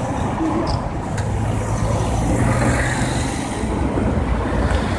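Cars driving past close by at low speed, a steady engine hum with tyre noise on the road.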